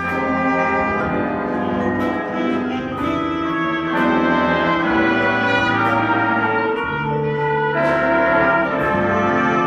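Jazz band playing, its brass section holding long sustained chords, with a few light percussion hits.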